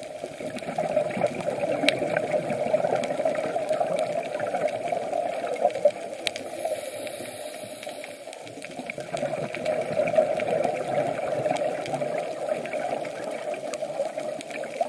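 Scuba diver's exhaled breath bubbling out of the regulator, heard muffled through an underwater camera housing: two long gurgling surges with a quieter pause between them, and a few faint clicks.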